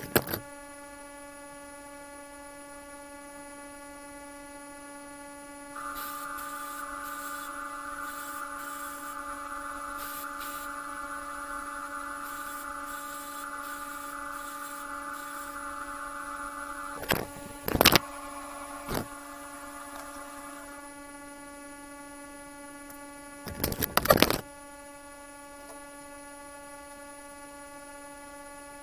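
Steady electrical hum. About six seconds in, a small power tool starts and runs for about fifteen seconds, then stops. Several sharp metallic knocks come near the middle and again a few seconds later.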